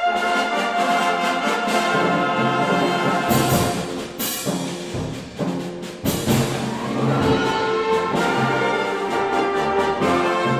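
A concert band of flutes, clarinets, saxophones and brass playing sustained full chords, with loud percussion strikes that ring on, about three, four and six seconds in, the band quieter between the last two.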